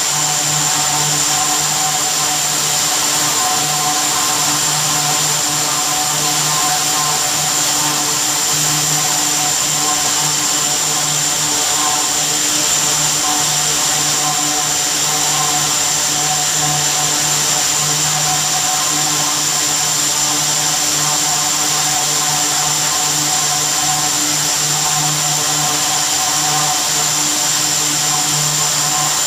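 Zari (metallic thread) machine running: many rows of spindles turning bobbins of silver thread, belt-driven by an electric motor, making a steady, loud mechanical drone with a constant high whine over a low hum.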